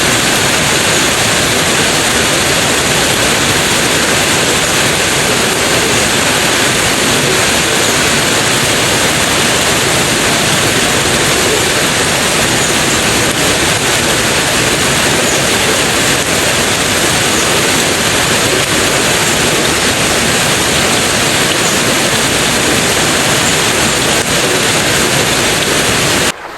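Heavy rain pouring down, a loud, dense, unbroken hiss.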